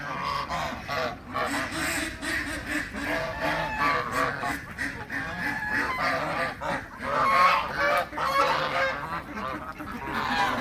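A flock of backyard poultry calling, many birds at once in a continuous overlapping chorus.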